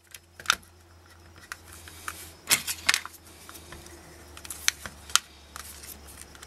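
Plastic goggle housing clicking and creaking as its halves are pried apart by hand against a stubborn snap clip. The sharp clicks come irregularly, several close together about two and a half to three seconds in and more near five seconds.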